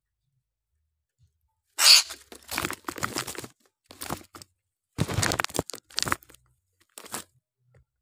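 Rustling and scraping against a net-lined bamboo bird cage. There are several noisy, irregular bursts over about five seconds, and the loudest comes about two seconds in.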